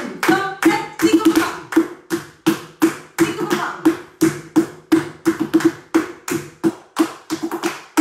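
Flamenco shoes striking a wooden floor in bulerías footwork: sharp stamps and taps in an uneven rhythm of about two to four a second, with quick runs of strokes near the end. Hand clapping (palmas) goes along with the footwork.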